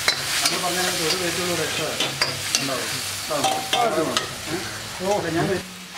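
A metal ladle stirring and scraping vegetable curry in a large black iron wok, with repeated clanks and scrapes of the ladle against the pan over a steady sizzle of frying.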